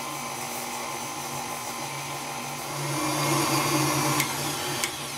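Electric tilt-head stand mixer running, its flat beater creaming butter and sugar in a steel bowl: a steady motor hum that grows louder about three seconds in, with two light ticks near the end.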